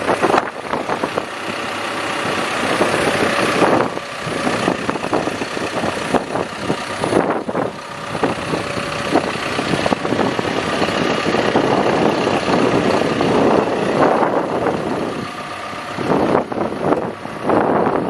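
Diesel engine of a Cat 420F backhoe loader running, with a steady, uneven noise and a few brief dips in level.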